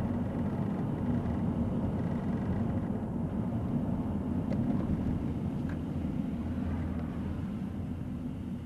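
Steady engine and road rumble heard from inside a moving car's cabin.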